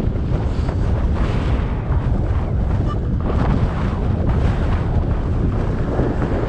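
Wind buffeting an action camera's microphone while riding a bicycle: a steady low rumble that swells and eases in gusts.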